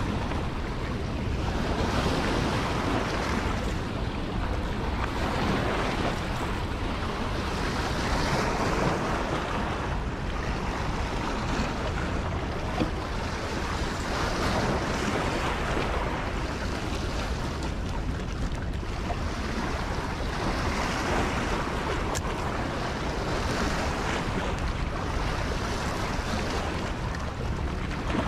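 Steady rushing of water below a dam, swelling and easing every couple of seconds, with wind buffeting the microphone.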